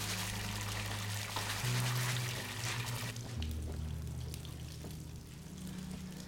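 Water running from a bathtub tap, a steady hiss that stops about three seconds in, over low sustained music notes that shift in pitch twice.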